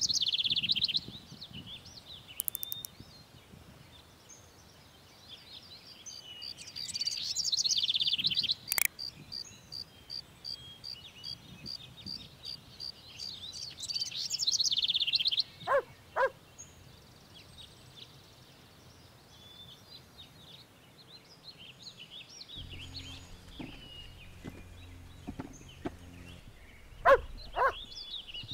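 Songbirds singing, with bursts of chirping phrases and a long run of rapid repeated notes in the first half. A short, loud double sound comes once midway and again near the end, the loudest moments.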